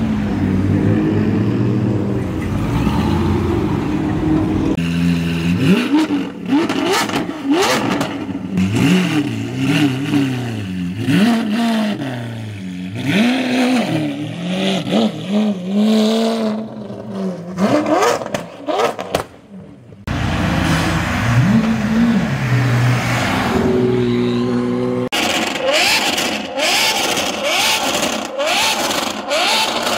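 Supercar engines, a McLaren, a Lamborghini Aventador SV and a Ferrari FF among them, revving and accelerating away one after another. The revs climb and drop repeatedly through blips and gear changes, with sudden cuts between cars.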